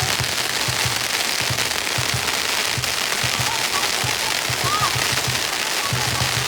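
A long string of firecrackers crackling continuously, over a rapid run of deep drumbeats.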